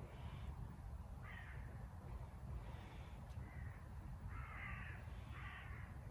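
A crow cawing: a series of about six harsh caws, the two near the end longer and louder, over a steady low rumble.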